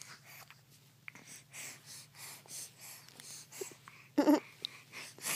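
Baby's soft, quick breathing and mouth noises around a pacifier, with a short grunt about four seconds in.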